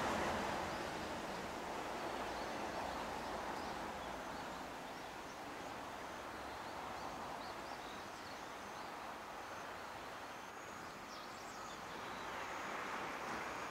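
Steady rushing outdoor background noise with faint, short bird chirps scattered through it.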